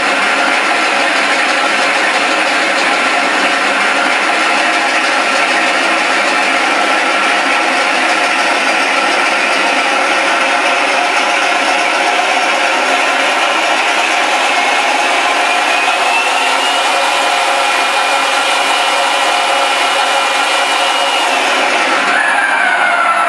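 Scale radial-engine sound of a Pratt & Whitney Wasp, played by a Mr. RCSound V4 sound module through two 3-inch speakers in an RC A-1 Skyraider model, running loud and steady. A thin whine rises about two-thirds in, holds, and falls away near the end.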